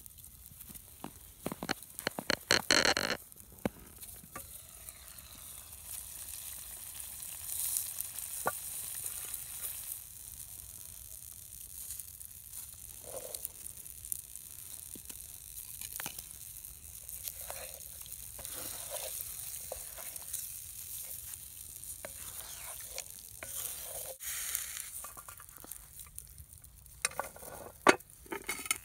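Chili simmering and sizzling in a cast-iron Dutch oven over coals, with scattered small clicks. Metal clanks and scrapes of the coal-topped lid being handled come for a few seconds near the start, and sharp knocks again near the end.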